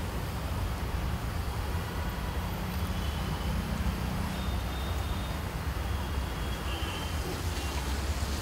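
Steady low rumble of background noise, even throughout, with no distinct sound from the batter being spread on the griddle.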